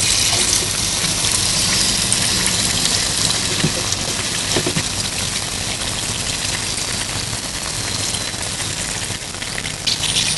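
Hot oil sizzling steadily in a wok as an egg-and-flour-coated hot dog deep-fries.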